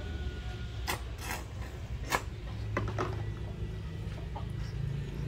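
Handling sounds of bathing a baby in a plastic baby tub while soaping him: a handful of short clicks and splashes from the soap bottle, hands and water, over a low steady hum.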